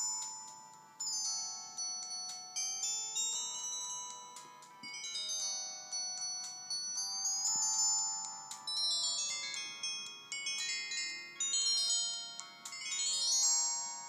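Ringtone melody playing from a Samsung SGH-B270/C270 flip phone's loudspeaker, previewed from its call-ringtone menu: a high, chiming tune of struck notes that each fade quickly, several sounding at once.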